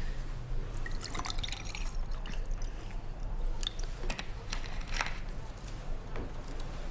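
Water poured from a plastic bottle into a drinking glass, with scattered crackles and clicks of the plastic bottle and its cap.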